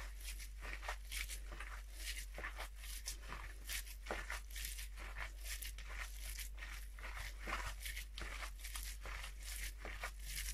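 A hand in a plastic glove mixing wet raw ground-beef siomai filling with egg in it: a run of irregular squishing and crinkling strokes, several a second.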